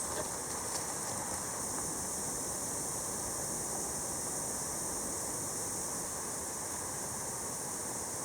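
Steady, even outdoor hiss of forest ambience, with a few faint ticks about a second in.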